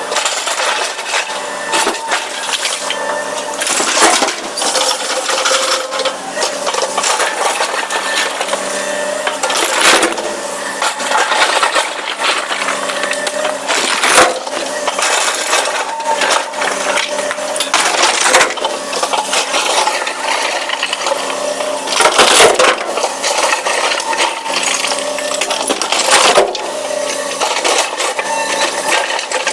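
Excavator diesel engine running steadily while rocks and stones clatter down in sharp crashes every few seconds, with smaller rattling between, as the bucket loads a dump truck.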